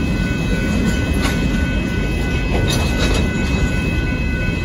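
Union Pacific intermodal freight train's cars rolling past at a grade crossing: a steady, heavy rumble with a few sharp clanks from the wheels, about a second in and again around three seconds in. A steady high ringing tone runs along with it.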